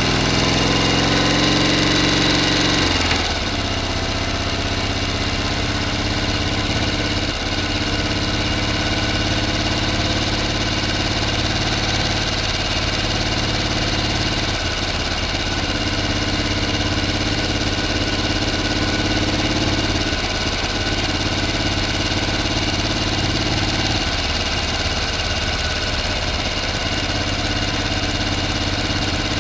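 Motor running steadily. For the first three seconds it runs louder, its pitch rising, then it drops suddenly to an even, lower running that holds steady.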